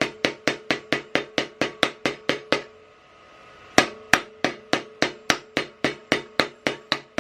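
A steel tire iron striking repeatedly on an overinflated motorcycle tire and rim, about four sharp knocks a second with a ringing metallic note, to knock a stubborn bead into its seat. The knocking stops for about a second midway, then starts again.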